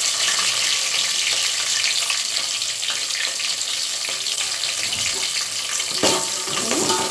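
Green chillies and onion sizzling steadily as they fry in hot oil and ghee with whole spices, a few light clicks near the end.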